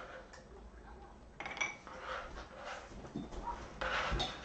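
Kitchen handling noises: rustling and scraping as shredded carrot is piled onto a cloth kitchen towel, with a few soft clinks of utensils or dishes. Irregular, with louder bits about a second and a half in and near the end.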